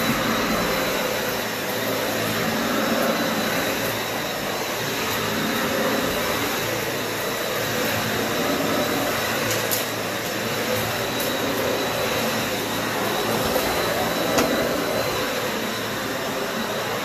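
Dyson upright vacuum cleaner running on carpet: a steady motor whine and rush of air with a faint high tone, swelling a little as it is pushed back and forth. A couple of sharp ticks come through, debris being sucked up.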